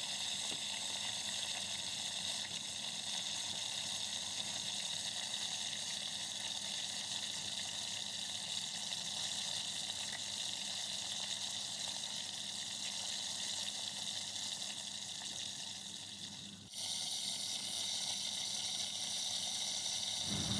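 Oil sizzling steadily in a frying pan as breadcrumb-coated potato-and-egg cutlets shallow-fry. The sizzle breaks off briefly near the end and resumes.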